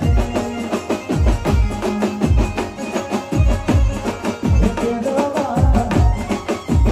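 Live band music carried by a steady drum beat, with low drum hits landing about once a second over the band.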